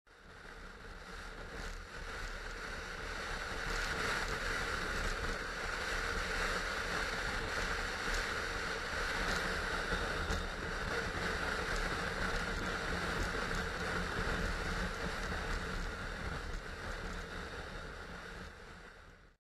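BMW F650GS motorcycle cruising at motorway speed: a steady rush of wind over the camera's microphone with the engine's low drone beneath it. The sound fades in over the first few seconds and fades out near the end.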